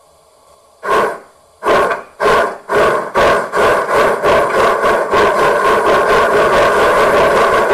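Sound electronics of a 1:32 Gauge 1 model of the DR class 18.2 steam locomotive 18 201 playing steam exhaust chuffs as the locomotive starts off. The first chuff comes about a second in, then the beats come ever faster until they run together into a rapid, even chuffing as it picks up speed.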